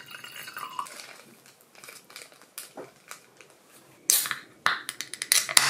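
Aluminium beer can and glassware handled on a wooden table. A short loud hissing burst comes about four seconds in and another half a second later, then a quick run of sharp clicks and knocks near the end.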